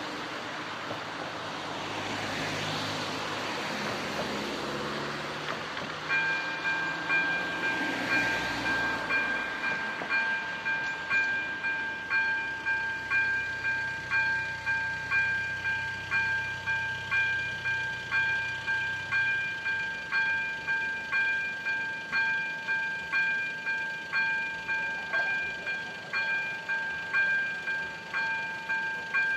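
Road traffic passing over the crossing, then about six seconds in a level-crossing warning bell starts ringing, an even, repeating ding a bit more than once a second that keeps going as the crossing closes.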